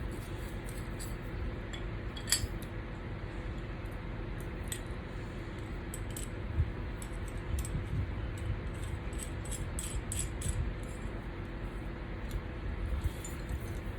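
Small loose metal parts clinking and rattling as they are handled, in scattered light clicks with a sharper click about two seconds in, over a steady low hum.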